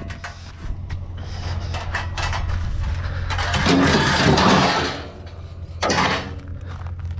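Junk being handled and shifted in a curbside scrap pile: scattered knocks and clicks, with a louder scraping clatter about halfway through and another sharp knock near the end, over a steady low hum.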